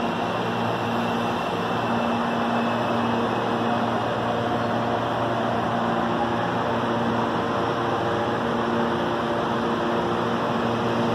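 CPTM electric commuter train running along the platform: a steady hum and rumble that grows a little fuller about two seconds in.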